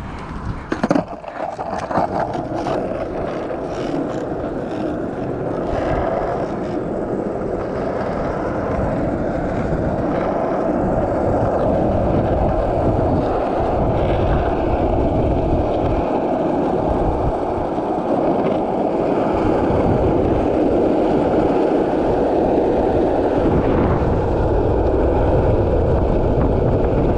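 Skateboard wheels rolling fast on asphalt with wind on the microphone, a few sharp knocks in the first couple of seconds, the rolling noise growing steadily louder as the board gathers speed down a hill.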